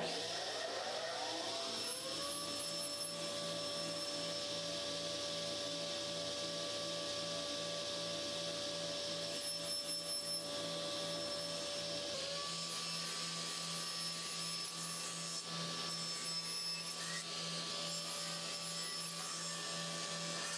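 Sliding table saw starting up, its motor whine rising over about two seconds, then running steadily while the blade cuts a slatted hardwood door panel. The whine steps in pitch about twelve seconds in.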